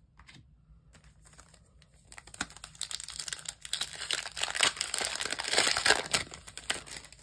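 Foil wrapper of a Panini NBA Hoops trading-card pack crinkling and tearing as it is pulled open by hand. The rustling starts about two seconds in and is loudest a second or so before it stops near the end.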